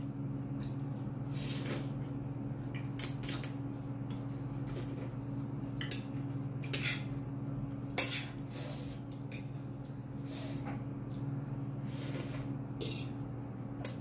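Metal fork clinking and scraping against a ceramic plate while noodles are twirled and picked up, in short irregular clicks with one sharp clink about eight seconds in. A steady low hum runs underneath.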